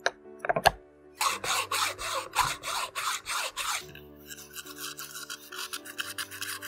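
A hand saw cutting into the hard shell of a whole coconut: a couple of knocks as the coconut is set down, then rasping back-and-forth strokes, about three a second, that turn lighter and quicker about four seconds in.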